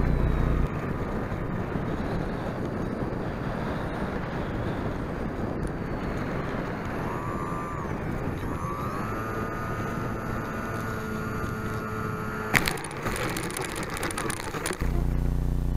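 Onboard audio of an E-sky Eyas electric RC plane in low flight: steady rushing airflow with the motor's whine gliding up and holding as the throttle changes. Near the end a sharp thump as the landing gear hits the ground, then a couple of seconds of rattling as the plane rolls and bounces over grass.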